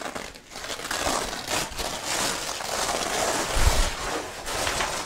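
Zippers on a fabric grow tent being run down and the stiff door flaps rustling and crinkling as they are pulled open, with a dull thump about three and a half seconds in.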